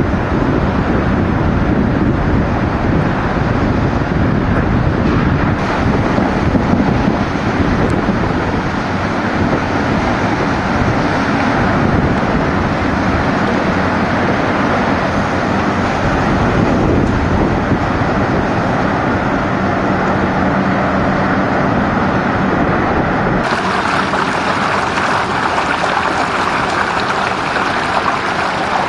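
Hurricane wind buffeting the microphone, a steady loud rush of noise. About three-quarters of the way through it cuts suddenly to the hissing rush of water as a vehicle drives through deep floodwater.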